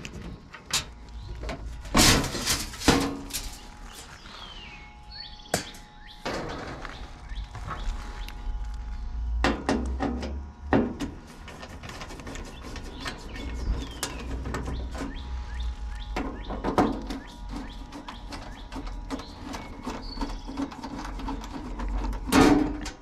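A hand screwdriver working the sheet-metal screws on the cabinet of a 2001 Carrier central air conditioner's condenser: scattered small clicks and scrapes, with a few louder metal knocks. Birds chirp now and then.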